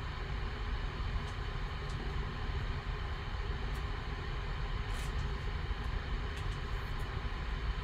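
A steady low rumble of background noise, with a few faint ticks and rustles as trading cards are slid into plastic sleeves and holders.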